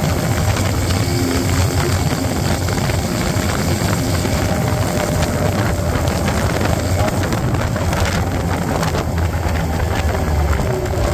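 250cc Vitacci GTO motorcycle engine running steadily at cruising speed, held at about 5,000 rpm, with steady wind and road noise from riding.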